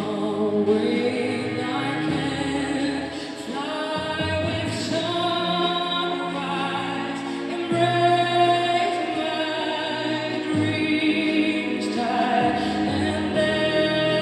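A slow pop ballad performed live, with a woman singing lead over backing voices and bass notes that change every couple of seconds.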